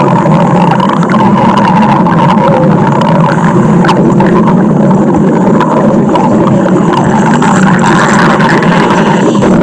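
Cartoon stomach-growl sound effect: a loud, unbroken low rumble that holds steady without pauses.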